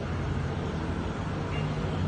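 Steady low rumble of road traffic and an idling vehicle engine, with no sudden impacts.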